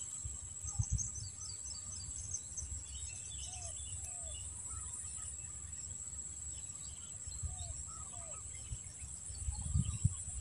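Steady high-pitched drone of insects, with birds chirping and giving short slurred calls, in pairs. A low rumble swells near the end.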